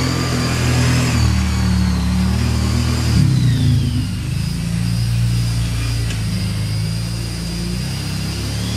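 Kawasaki Brute Force 750 ATV's V-twin engine revving and easing off as it drives around, loudest about three seconds in.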